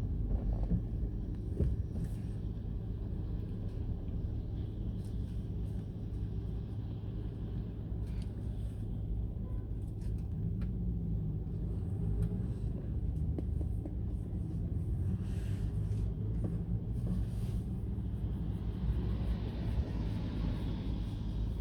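Steady low road rumble of a car heard from inside the cabin while driving, with a brief rise in tyre hiss near the end.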